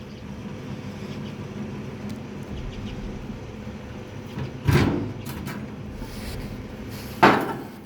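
A steady low hum, broken by two loud knocks about two and a half seconds apart, the second a little louder, each ringing out briefly.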